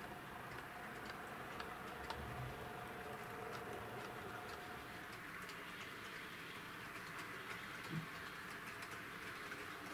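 HO-scale model freight train running on the layout: a faint steady motor whine that fades out about four seconds in, over light, irregular clicks of wheels on the track. A single louder knock comes about eight seconds in.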